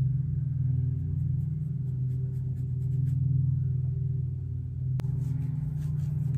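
A steady low hum, with faint soft dabbing and scratching of a makeup brush working foundation into a wig's lace, and one sharp click about five seconds in.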